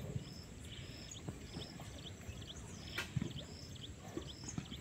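Outdoor ambience: a short high chirp repeating evenly about twice a second over a low rumbling background, with a single sharp click about three seconds in.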